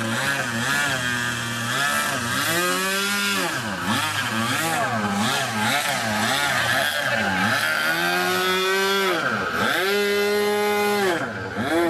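Small engine revving up and down over and over, held briefly at high revs a few times before dropping back.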